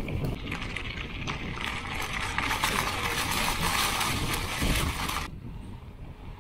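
Mountain bike tyres crunching and crackling over loose gravel, with wind rumble on the microphone. About five seconds in the crunch cuts off suddenly as the bike is on smooth pavement, leaving only the wind rumble.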